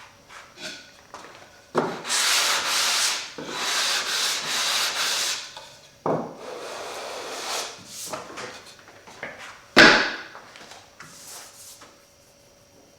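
Hand sanding over a Douglas fir door's glued-down veneer: several long rubbing strokes, then a short sharp stroke about ten seconds in. The sound over the repair is taken as a sign that a little of the veneer is still delaminated, especially toward the ends.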